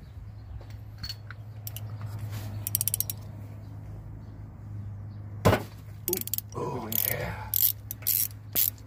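Socket ratchet clicking in short runs as spark plugs are loosened on a Chevy 454 big-block, with a sharp metallic knock about halfway through. A steady low hum runs underneath.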